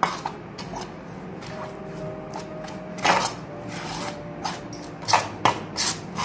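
Hand mixing flour and water into a batter in a stainless steel bowl: soft scraping, with a few sharp clicks against the steel, once about three seconds in and three close together near the end.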